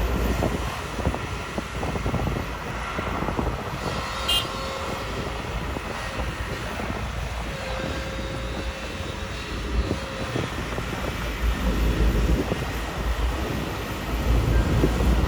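Kobelco SK250 hydraulic excavators working: steady diesel engine rumble, with a faint hydraulic whine that holds for a few seconds in the middle and a brief high squeak about four seconds in.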